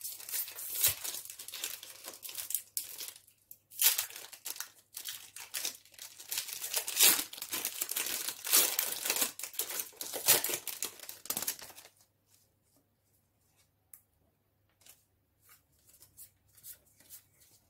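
A foil Pokémon booster-pack wrapper being torn open and crinkled, dense crackling for about twelve seconds. It then stops suddenly, leaving only a few faint taps as the cards are handled.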